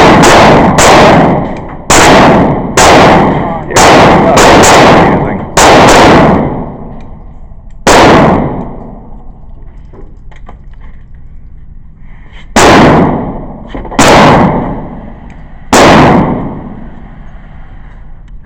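Gunshots from a firearm at a shooting range. A fast string of about eight shots comes in the first six seconds, then single shots spaced a second or more apart, each with a ringing echo tail.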